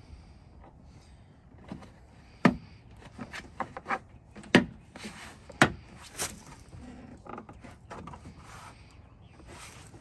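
The interior door trim panel of a 2017 Toyota Tundra being pushed home by hand, its retaining clips snapping into the door: a series of sharp knocks and clicks, the loudest three in the middle stretch.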